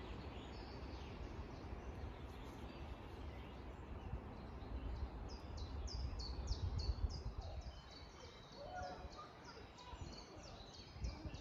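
A small songbird singing a run of quick, high, repeated down-slurred notes, about three a second, starting about halfway through, over a steady low outdoor rumble.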